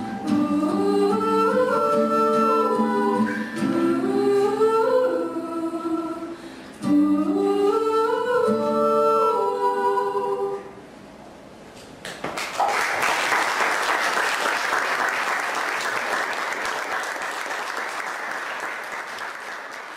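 Two female voices singing the closing phrases of a song in harmony, stopping about ten seconds in. After a short pause an audience applauds, the clapping fading toward the end.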